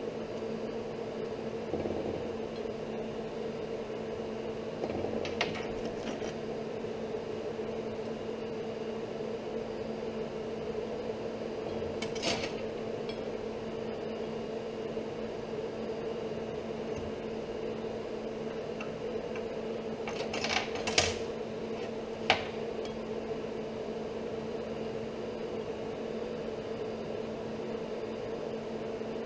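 Steel tools and a piece of steel angle handled on a steel workbench: a few light metal clinks and knocks scattered through, the sharpest two coming close together about two-thirds of the way in. Under them a steady machine hum.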